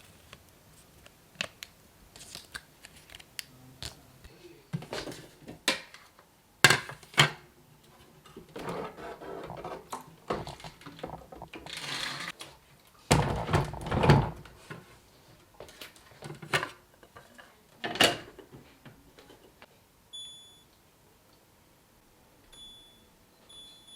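Small objects being handled: irregular clicks, knocks and rustling, loudest at about 13 to 14 seconds in. A few short high beeps come near the end.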